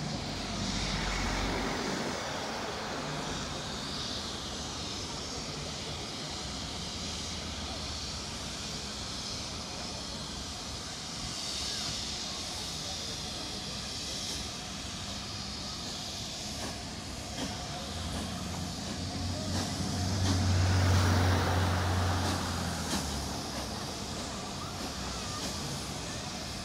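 Steam locomotive and its coaches running slowly into a station, a steady even noise. A low hum swells to its loudest about twenty seconds in, then fades a few seconds later.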